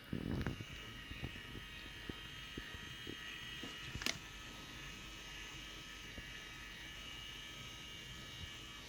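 Small electric motor of a rechargeable head massager buzzing with a steady high whine. There is a low knock of handling just at the start and a sharp click about four seconds in.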